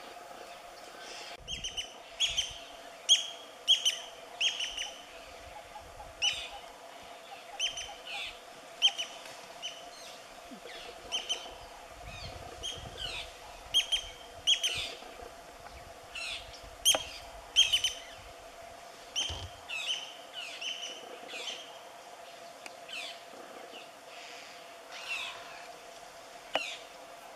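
Short high chirping calls, bird-like, repeated irregularly every second or so, over a faint steady tone.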